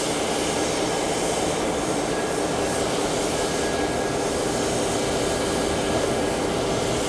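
Steam locomotive letting off steam: a steady, loud rushing roar.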